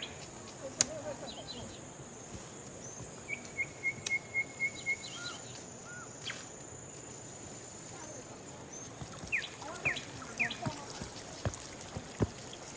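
Forest birds chirping over a steady high insect drone; one bird gives a quick even run of about six notes about three seconds in, and others chirp near the end. The drone stops about two-thirds of the way through, and a few sharp clicks are heard.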